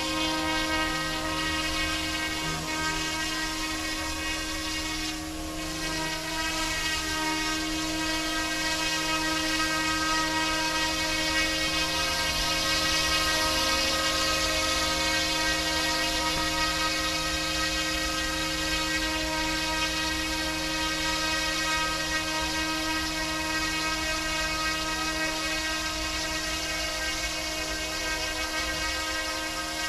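Motor whine and rotor buzz of a small electric RC scale UH-60 Black Hawk helicopter (YXZNRC F09-S) in flight: a steady high whine made of many stacked tones. Its pitch and loudness dip and waver briefly about five seconds in, then hold steady.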